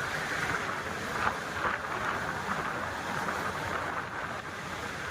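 Steady rushing noise of a moving passenger train, the run of the carriage mixed with wind.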